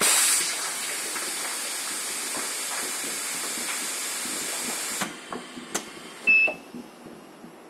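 Compressed air hissing steadily from a hot press (hot air) plastic cup welding machine, cutting off suddenly about five seconds in. A few sharp clicks and a brief high tone follow.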